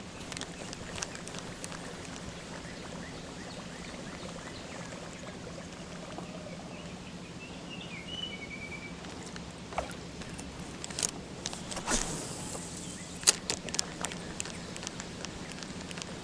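Outdoor ambience on a fishing boat: a steady low hum under scattered light clicks, with a brief bird chirp about halfway through. In the last third come a few sharp knocks and a short rush of noise.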